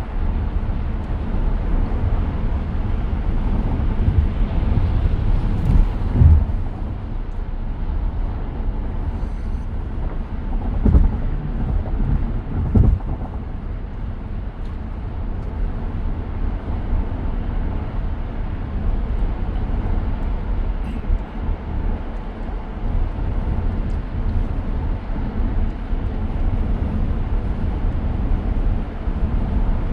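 Steady road and tyre rumble inside the cabin of a 2023 Tesla Model X driving along, with a few louder low thumps.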